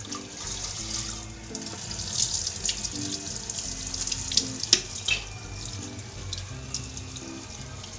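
Tap water running into an aluminium pressure cooker of chickpeas and splashing into a steel sink as the chickpeas are rinsed. A few sharp knocks and splashes come about halfway through, as the water is tipped out.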